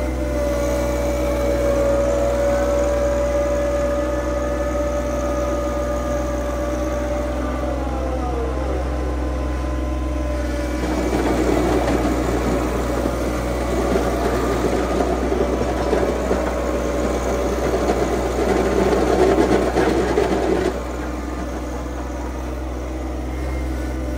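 Tractor engine running steadily under a steady whine. Near the middle a louder rough grinding noise joins for about ten seconds, then cuts off suddenly.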